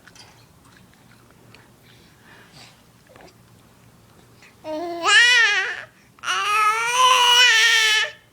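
A baby vocalizing. After a few quiet seconds comes a short call that rises and falls in pitch, then a longer drawn-out call near the end.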